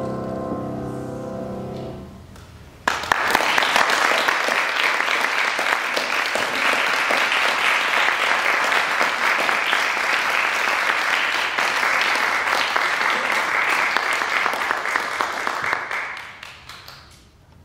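A classical singer's final held note and the piano's closing chord die away over about two seconds. Then an audience breaks into applause, sudden and steady, which fades out a second or so before the end.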